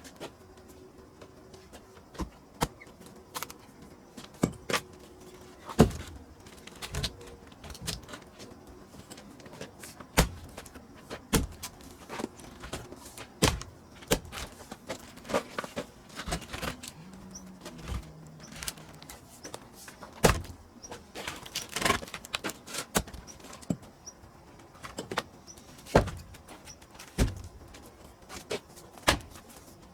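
Irregular wooden knocks and clatter of pine firewood being split and handled, with a few sharper, louder strikes among them.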